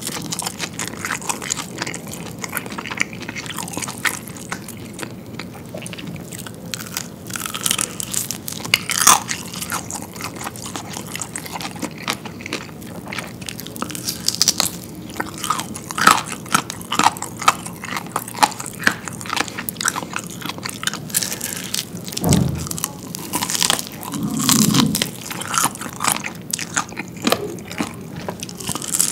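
Close-miked crunching and chewing of freshly fried, crisp-skinned fried chicken: many sharp, crackly bites through the batter, with chewing between them.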